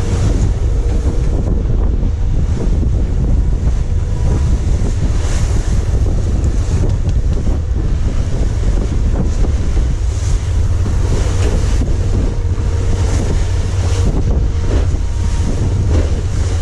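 Loud wind buffeting the microphone over waves and spray breaking against the hull of a small open fishing boat under way in rough sea, with a faint steady hum underneath.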